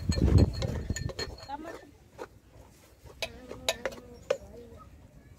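A metal spoon stirs a dry, crumbly mixture in an aluminium pot. It starts with a loud scraping rustle, then a few sharp clinks of the spoon against the pot's side.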